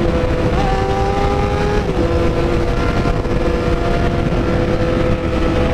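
Honda CBR 600RR's inline-four engine, fitted with an aftermarket exhaust pipe and no other mods, running at steady cruising revs, with a slight dip in pitch about two seconds in. Wind rushes heavily over the helmet microphone at highway speed.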